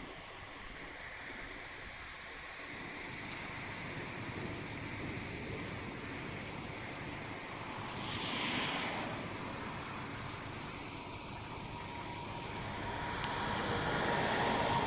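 Steady vehicle noise, swelling about halfway through and again near the end.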